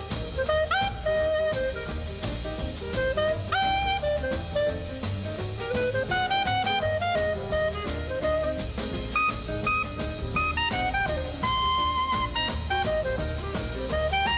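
Jazz music: a saxophone melody over drums and bass, some notes sliding up into pitch.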